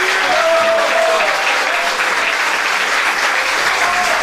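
Live audience applauding steadily, with a few faint voices over the clapping.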